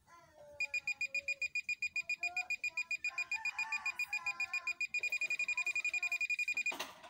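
GP-Pointer pinpointer metal detector beeping in a fast, even series of high-pitched pulses as it detects a metal heat sink held near its tip; the beeps come quicker about five seconds in as the metal comes closer. A sharp click near the end as the beeping stops.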